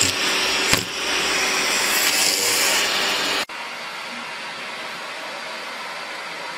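A loud rushing noise cuts off abruptly about three and a half seconds in. After it a vacuum cleaner runs with a steady, even hiss as its hose nozzle is drawn over a cat's fur.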